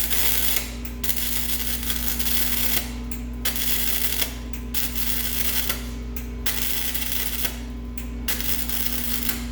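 Arc welder crackling in a run of short beads of one to two seconds with brief pauses between them, stitch-welding an exhaust cutout flange onto the exhaust pipe. A steady low hum runs underneath.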